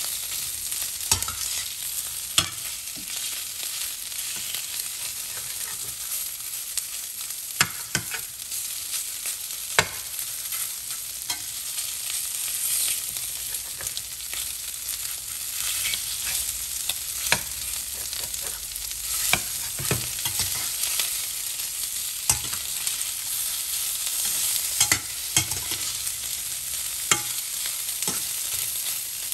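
Chicken pieces sizzling as they fry in a stainless steel skillet, a steady hiss. A slotted metal spatula stirs and turns them, clicking sharply against the pan every few seconds.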